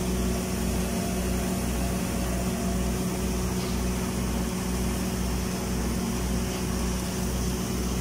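Automatic girth welding machine running a submerged-arc horizontal seam under granular flux: a steady machine hum with a low throb pulsing a little more than once a second.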